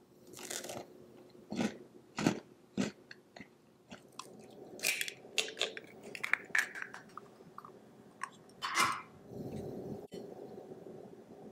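Several crisp crunches, then a quick run of small cracks and taps as an egg's shell is cracked and pulled apart over a glass bowl.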